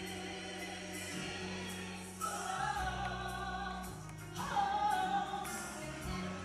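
A woman singing a slow sacred song solo into a microphone, amplified through a church PA over a steady low accompaniment. She comes in with held notes about two seconds in and again, louder, a little after four seconds.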